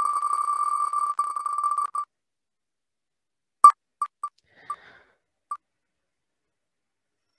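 Spinning-wheel sound effect of the Wheel of Names web app: a rapid stream of electronic ticks on one pitch, slowing after about two seconds to a handful of widening ticks as the wheel coasts to a stop, the last tick about five and a half seconds in.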